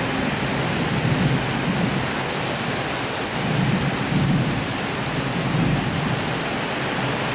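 Heavy rain pouring steadily, a dense even hiss, with a deep rumble swelling up now and then.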